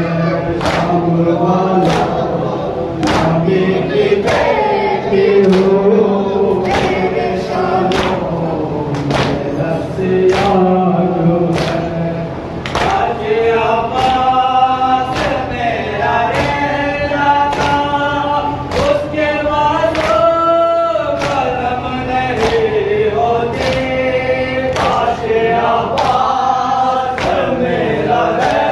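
Noha, a Shia mourning lament, chanted by male voices on a microphone, with the congregation joining in. It is kept in time by matam: chest-beating in unison, a sharp slap a little more than once a second.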